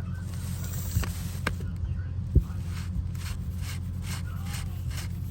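Hand grease gun being pumped into the mulcher's bearings: a few sharp clicks, then a regular run of short strokes about three a second, over a steady low engine hum.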